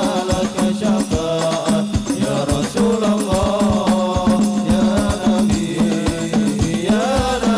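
Men singing a sholawat devotional song in chant-like unison, carried on microphones through a sound system, over rebana frame drums beating a fast, dense rhythm.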